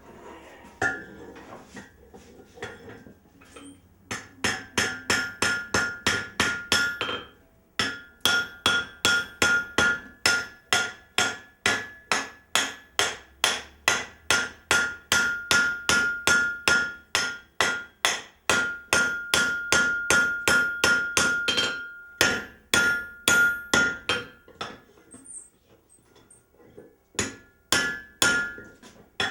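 Power trip hammer pounding hot steel in rapid, even strikes, about four a second, each ringing metallically, as a steel wagon standard is drawn down. There is a short break a few seconds in and a longer one near the end, followed by a few more strikes.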